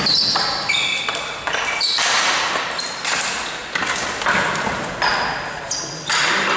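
Ball hockey play on an indoor rink floor: sharp knocks of sticks and ball about once a second, mixed with short, high squeaks of players' shoes on the floor.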